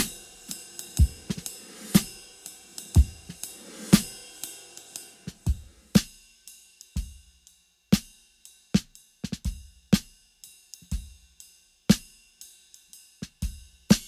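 Drum kit played lightly: a Ludwig Vistalite-style kick drum, its front head off and baffling inside, gives a short, dry thump about once a second under hi-hat and Zildjian cymbal strokes and a Ludwig Acrolite snare. The cymbal wash thins out about halfway through, leaving sparser, spaced hits.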